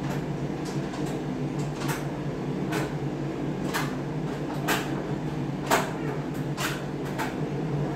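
Light clicks and taps, about one a second, from small objects being handled on a tabletop, with one sharper knock a little before the end, over a steady low hum.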